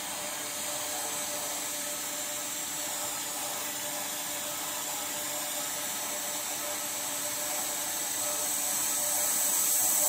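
Oxy-fuel gas welding torch flame hissing steadily as its oxygen valve is opened. The hiss grows louder over the last few seconds as the flame turns into a sharp blue cone.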